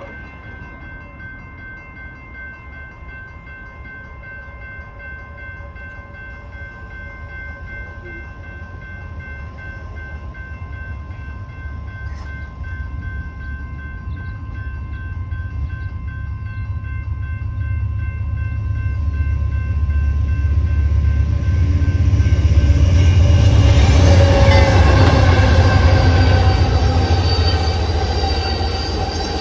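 Railroad crossing electronic bells (General Signals Type 2 e-bells) ring steadily with the gates down. An Amtrak passenger train's rumble builds and it is loudest from about 22 seconds in as it passes through the crossing.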